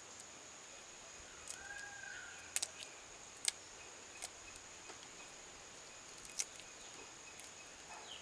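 Dry cinnamon bark snapping as it is broken by hand into a clay pot: a few sharp clicks, the strongest about two and a half, three and a half and six and a half seconds in. A faint steady high-pitched whine runs underneath, and a short bird call sounds about two seconds in.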